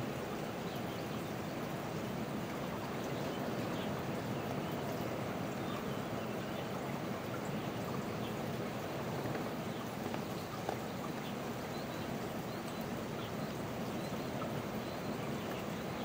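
Steady rush of running water, with a single soft tap about two-thirds of the way through.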